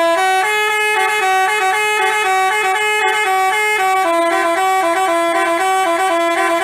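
Telolet musical bus horn of the Basuri type playing a quick melody. Several horn trumpets sound together, stepping from note to note every fraction of a second.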